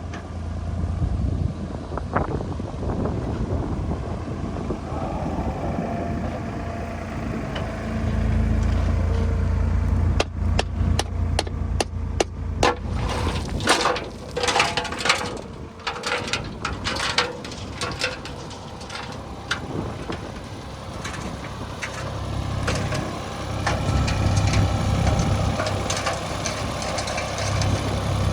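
Heavy diesel machinery engine running, with a dense run of sharp knocks and clanks through the middle of the stretch.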